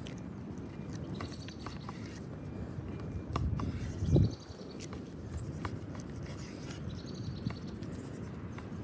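Large chef's knife slicing through raw picanha on a wooden cutting board in wet, squishing strokes, with a heavy thump about four seconds in. A wood fire crackles with sharp snaps throughout.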